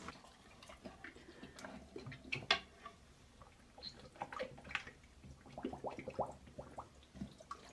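Golden retriever with its head in a toilet bowl, blowing bubbles in the water: faint, irregular small splashes, drips and gurgles.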